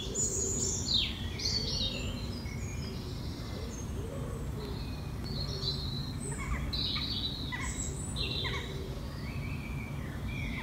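Birds singing and chirping: a run of short, high calls, many of them quick falling sweeps, over a steady low background noise.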